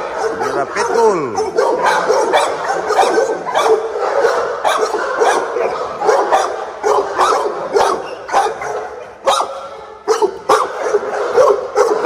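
Several kennelled dogs barking over one another in rapid, overlapping barks, with one drawn-out falling whine about a second in.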